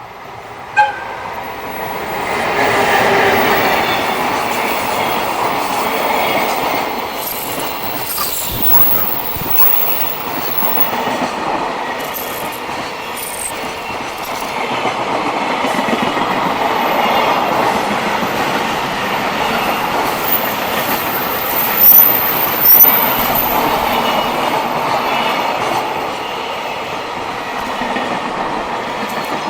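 A freight train passing close by: the steady rumble and clatter of wheels over the rails as the wagons roll past, with faint high-pitched wheel squeal at times. A brief sharp tone sounds about a second in, and two loud knocks come about 22 seconds in.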